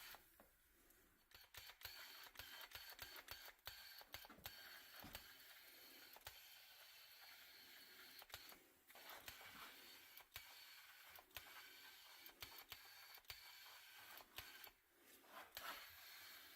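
Faint, irregular clicks and light taps over a steady hiss.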